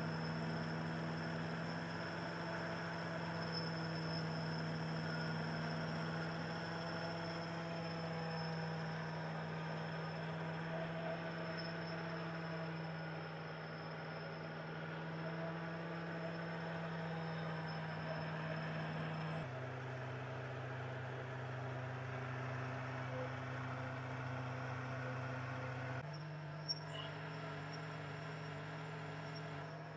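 Small benchtop metal lathe running while it turns down a metal pipe: a steady hum with a faint high whine. The hum drops in pitch about two-thirds of the way through and shifts again a few seconds later, with one small tick just after.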